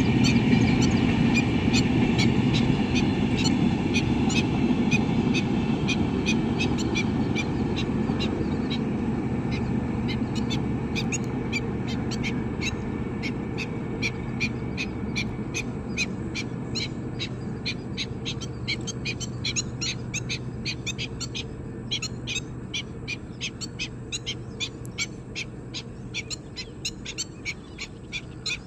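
Passenger train rumbling along the track, fading steadily as it moves away. Over it a bird calls over and over in short, high notes, about three a second, growing clearer as the train fades.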